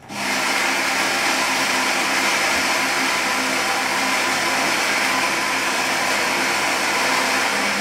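Saeco Xsmall espresso machine's built-in ceramic conical burr grinder grinding coffee beans: a steady motorised whirr that starts abruptly and holds an even level.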